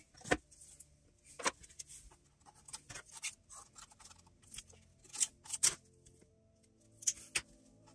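Sharp clicks and taps of small tools and a plastic spring clamp being handled and set on a wooden model ship hull, the loudest about a second and a half in and twice just past five seconds. Quiet background music plays underneath.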